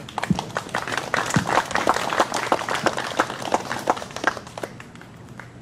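Small congregation clapping after a hymn: many hands applauding, dense for about four seconds and then dying away.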